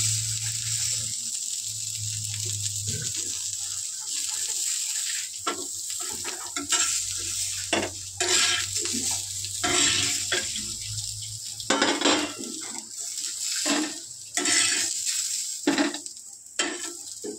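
Chillies, garlic and coconut sizzling in mustard oil on a hot tawa, a steady hiss. A metal spatula scrapes and knocks irregularly against the pan as the pieces are turned and lifted out onto a steel plate.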